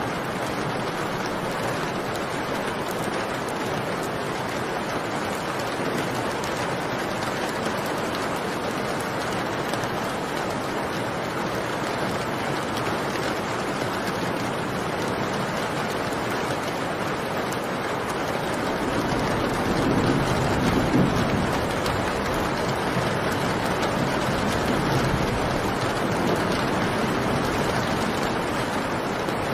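Steady rain, with a low rumble of thunder swelling about two-thirds of the way through.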